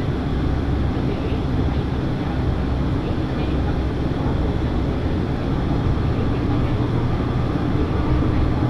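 Diesel railcar running along the line: a steady low engine drone and wheel-on-rail rumble.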